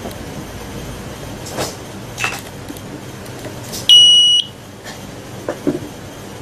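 Piezo buzzer on an Arduino noise-meter circuit gives one short, high-pitched beep of about half a second a little before the middle, its alarm going off as the red LED lights: a false alarm from the microphone running without an amplifier. A few faint knocks sound around it against low room noise.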